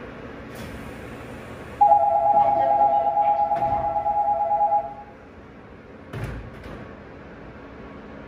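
Door-closing warning buzzer for a Seoul Line 4 subway train and its platform screen doors: a steady two-note electronic buzz lasting about three seconds while the doors shut. A short low thump follows about six seconds in.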